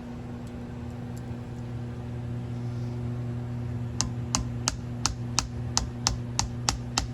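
Steady low hum, then from about four seconds in a run of sharp, even taps about three a second, as the black outer cap of a Honda ATC gas cap is worked loose from the inner body.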